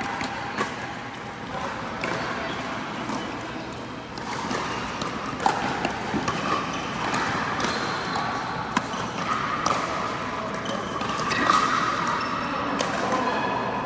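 Pickleball play on an indoor court: sharp pops of paddles striking the plastic ball and the ball bouncing on the court, at irregular intervals, over a steady background din.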